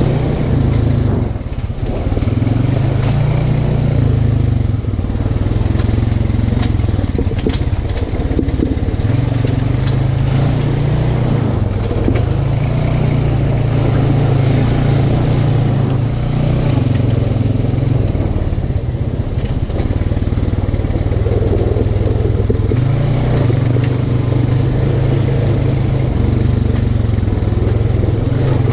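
Off-road vehicle engine running steadily, its revs rising and falling every few seconds as it is driven.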